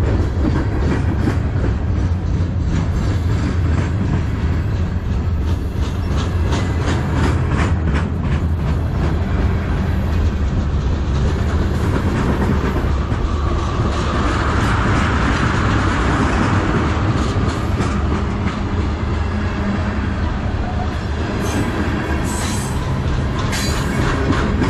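Freight cars of a manifest train rolling past close by: a steady heavy rumble of steel wheels on rail, with runs of clacking as the wheels cross rail joints. A hissing swell rises and fades about halfway through.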